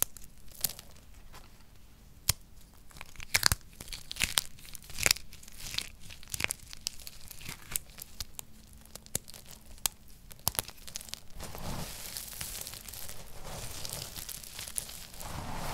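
Dry soap chunks crumbled between the fingers, giving sharp, scattered crisp cracks. For the last four seconds, hands press and rake through a heap of crushed dry soap pieces with a denser, steady crunchy rustle.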